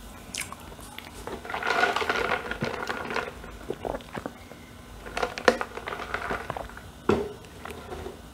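A person picking up and drinking from a large insulated tumbler: soft handling and rustling noise with small clicks, and a knock about seven seconds in.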